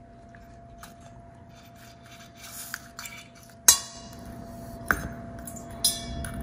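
Clinks and knocks of a metal spoon and spiny sea urchin shells against stainless steel bowls. The sharpest knock comes a little past halfway, with two lighter clinks about a second apart after it.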